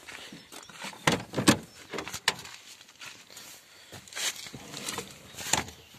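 A handful of sharp knocks and clicks, about five over several seconds, the loudest pair a second or so in.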